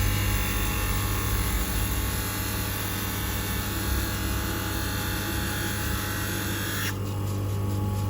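Motor of a manual three-stone lens edger running with a steady hum. About seven seconds in, the higher hiss drops away for about a second and a half while the hum carries on.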